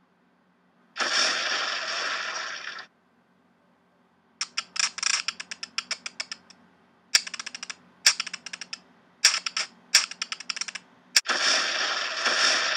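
Intro-animation sound effects: a hissing burst about a second in lasting about two seconds, then several short runs of rapid clicks, and near the end a sharp crack followed by a hissing explosion blast of nearly three seconds.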